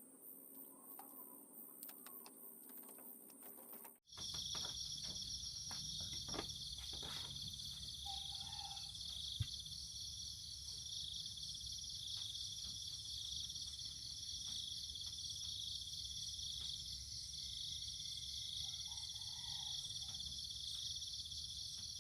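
Steady chorus of insects chirping in dense, fast, unbroken high-pitched trills, starting abruptly at a cut about four seconds in, with a few faint clicks.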